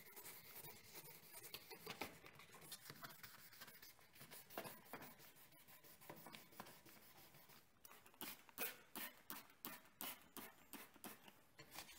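Faint hand wet-sanding of a faded plastic headlight lens with 1500-grit sandpaper: soft scratchy rubbing that turns into a run of quick strokes, about three a second, from about eight seconds in.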